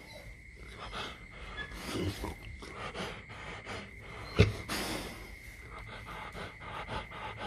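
Rottweiler in labour breathing hard and snuffling close to the microphone, with a soft rustle of tissue and a single sharp knock about four and a half seconds in.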